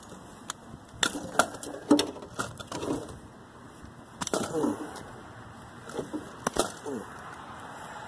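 A knife sawing at a thick insulated power cord on an appliance: scattered sharp clicks and knocks, with a few short creaking squeaks that slide in pitch.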